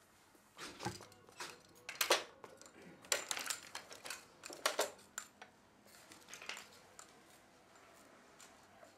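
A walking frame and slow shuffling footsteps on a tile floor: a run of irregular scrapes and knocks, the loudest about two, three and nearly five seconds in, growing fainter after that.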